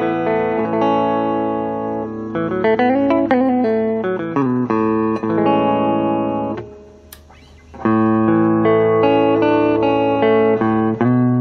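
Better LP-10 Les Paul-style electric guitar played through an amplifier: sustained chords and single notes, with a quick run of notes about two to four seconds in. Near the middle it falls quiet for about a second, broken by one sharp click, then the chords resume.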